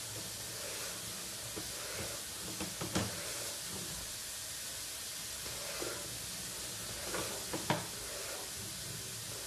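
Steady hiss with a few short knocks as a sewer inspection camera's push cable is pulled back through the pipe; the loudest knock comes about three seconds in, another sharp one near the end.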